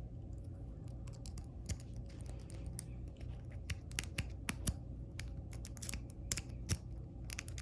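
Rake pick scraping and clicking against the pin tumblers in the keyway of a 40 mm Master No. 3 laminated steel padlock: an irregular run of small metallic clicks, thicker in the second half, over a low steady hum.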